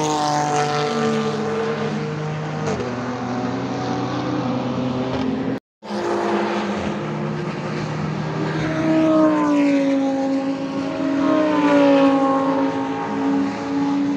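Sports cars driving past on a race circuit, their engine notes sliding down in pitch as they go by and rising and falling again later as more cars pass. The sound drops out completely for a split second near the middle.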